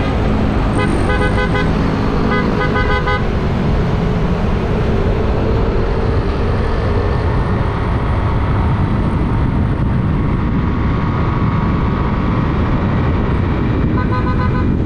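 Steady, loud wind rush and road noise on the microphone of a moving motorcycle, with a vehicle horn honked twice in the first few seconds and once more near the end.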